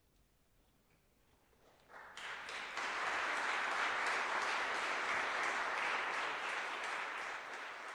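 A near-silent pause, then an audience starts applauding about two seconds in. The clapping builds within a second to a steady level and begins to fade near the end.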